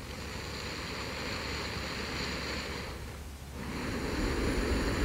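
A person's slow, deep sleep breathing close to the microphone: one long breath, a short pause about three seconds in, then the next breath, a little louder.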